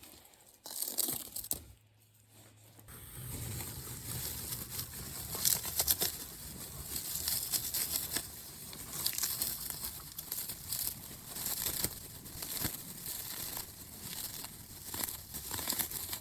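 Dry juniper bark being peeled and torn off a branch by hand for fire-starting tinder: a long run of crinkly tearing and crackling.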